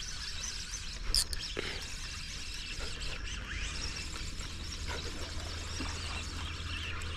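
Open-air waterside ambience: a steady high hiss of insects with faint bird chirps, and one sharp click about a second in.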